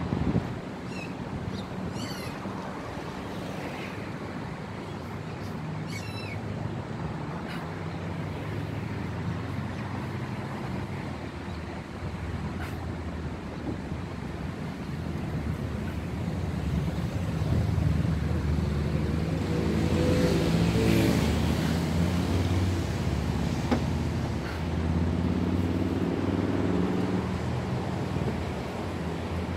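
Road traffic: motor vehicle engines running, with a vehicle coming closer and louder about two-thirds of the way through, its engine pitch rising, and another shortly after. A few short high chirps in the first seconds.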